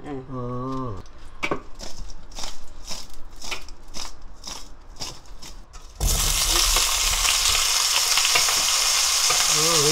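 Salted potato slices tossed in a stainless mesh strainer, a run of soft rattles two or three a second. About six seconds in they drop into a pot of hot grapeseed and perilla oil and start sizzling loudly and steadily.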